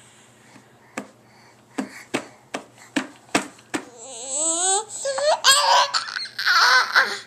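A baby taps and pats a plastic high-chair tray while picking at food, about seven sharp taps in the first four seconds. Then the baby squeals and laughs in high, gliding pitch.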